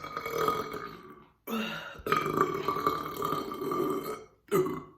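Long, deep burps brought up by a bottle of carbonated ginger ale chugged without stopping: one trails off in the first second or so, a second runs about two and a half seconds, and a short one comes near the end.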